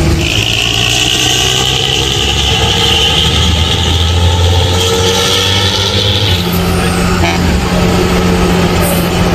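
Aftermarket vehicle exhaust running, with a deep snoring note and a tinny, shrill ring on top. The high ring lasts about six seconds and then drops away as the low note shifts.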